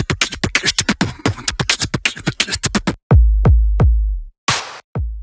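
Electronic intro jingle: a quick run of sharp beats, then about three seconds in, a handful of deep bass hits that drop in pitch, with a short burst of noise between them.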